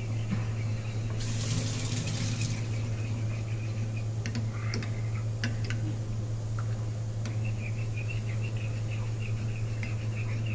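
Small metal spoon stirring espresso in a ceramic cup, with a few light clinks against the cup around the middle. A steady low hum runs underneath, and a brief hiss comes about a second in.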